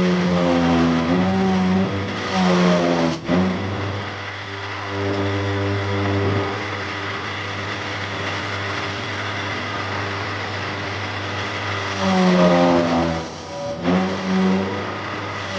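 A power tool's motor running, its pitch sagging and recovering in stretches, as if under changing load, with a steadier stretch in the middle.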